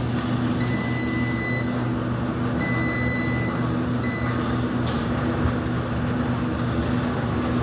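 Steady hum of laundromat machines running, with a laundry machine's electronic beeps over it: two long beeps about a second each, then a short one. This is the machine responding after a card payment.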